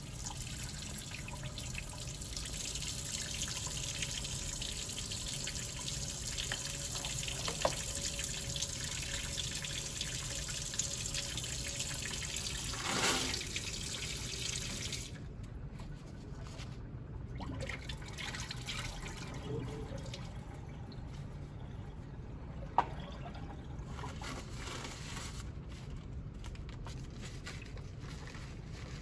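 Tap water running steadily into a porcelain sink, stopping about halfway through, with a brief louder rustle just before it stops. Paper towel rustles and handling follow, with one sharp click.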